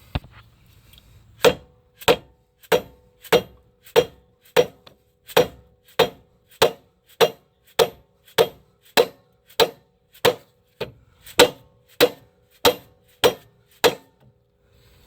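Steady, evenly paced hammer blows on steel front-suspension parts, about 21 strikes at a little under two a second, each with a short metallic ring. The hammering is meant to pop the lower ball joint stud free of the steering knuckle while a pry bar holds it down.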